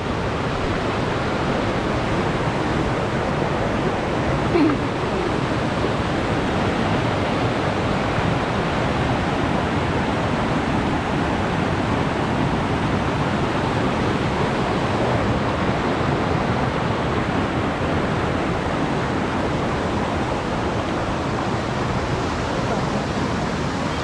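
Steady rush of flowing river water: an even, unbroken noise with no rhythm or pitch.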